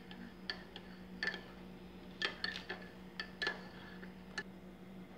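A spoon stirring in a ceramic mug, clinking against its sides in irregular sharp, ringing clinks that stop about four seconds in. A steady low hum runs underneath.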